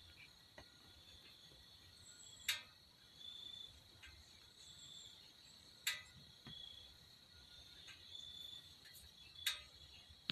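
Faint steady chorus of crickets, a thin high buzz, with a few short higher chirps. Four sharp clicks stand out above it, about three and a half seconds apart.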